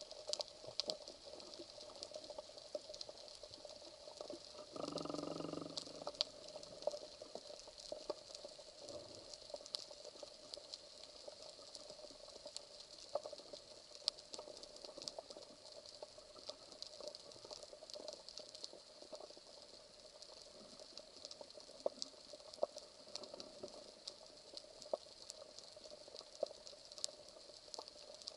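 Underwater reef ambience heard through a camera's waterproof housing: a steady crackle of many small clicks, typical of snapping shrimp on a rocky seabed. About five seconds in, a brief low buzzing tone rises above it for about a second.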